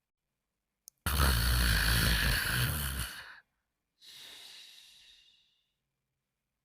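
Cartoon snoring sound effect: a faint click, then a rasping in-breath snore about two seconds long with a rattling low end, followed by a softer, airy out-breath that fades away.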